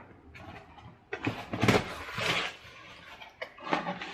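Cardboard and paper packaging rustling and scraping as a parcel is opened by hand, in irregular bursts.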